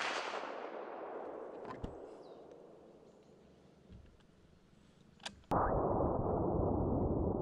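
The crack of a .308 Winchester rifle shot rolling away in echo, fading over about three seconds. About five and a half seconds in, a sudden loud, muffled rush of noise starts and holds.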